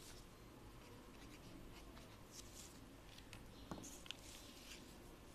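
Faint scratching of a pencil writing on lined paper, with two light taps about four seconds in.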